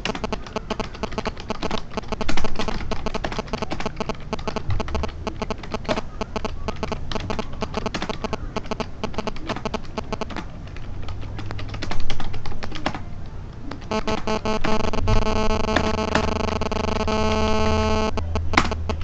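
Rapid typing on a computer keyboard, drowned by loud electronic buzzing and chattering interference, which the uploader puts down to the microphone being near a mobile phone. Near the end the interference turns into a steady buzzing drone for about four seconds, then cuts off.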